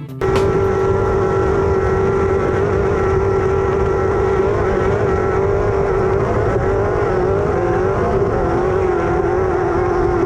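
Off-road race car engine held at high, steady revs, with a loud rushing noise under it. The pitch sags slightly about eight seconds in, then comes back up.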